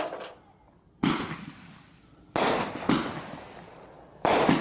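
Consumer aerial fireworks going off in a string: five sharp bangs over about four seconds, each trailing off in a fading echo before the next.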